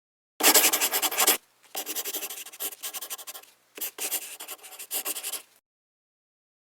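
Scratching and rubbing in three stretches: a loud one of about a second, then two longer, quieter ones of nearly two seconds each.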